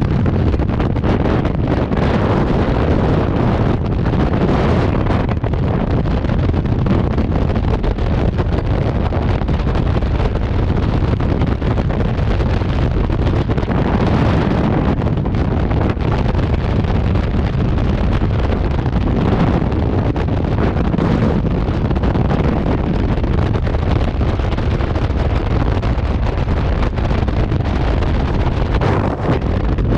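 Rushing freefall wind buffeting a skydiver's helmet-mounted camera microphone, a loud, steady roar.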